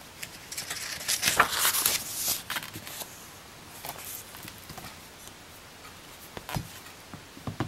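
Pages of a hardcover picture book being turned by hand, paper rustling, then the book closed and handled, with two light knocks near the end.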